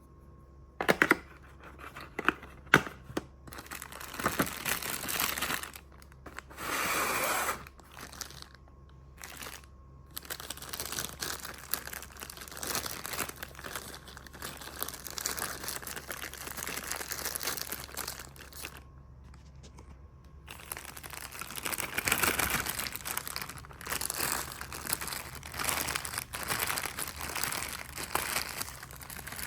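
Packaging being opened and handled: plastic wrapping and paper crinkling and tearing, with a few sharp clicks and knocks in the first few seconds.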